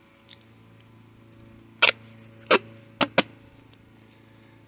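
Duct tape being pulled and torn from the roll in four short rasping rips, the last two close together, over a steady low hum.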